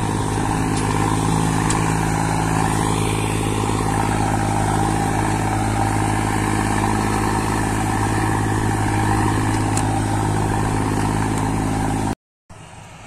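Diesel tractor engine running steadily under load while hauling a loaded trailer across a field, one even engine note; it cuts off abruptly about twelve seconds in.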